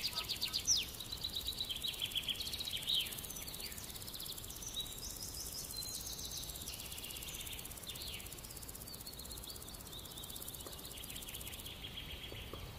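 Hot oil sizzling steadily as cabbage-and-noodle balls deep-fry in a kadhai, with quick high chirps over it that are strongest in the first few seconds. The hiss drops away near the end.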